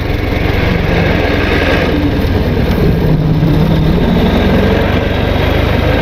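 Ford Model T's four-cylinder engine running steadily with a low, even rumble as the car moves slowly.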